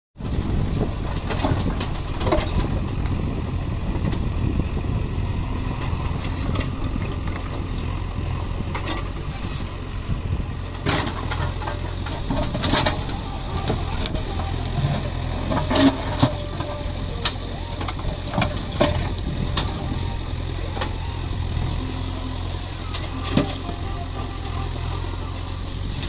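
JCB 3DX backhoe loader's diesel engine running steadily while the backhoe bucket digs into rock. Sharp knocks and clinks of stone against the steel bucket come every few seconds, the loudest a little past halfway.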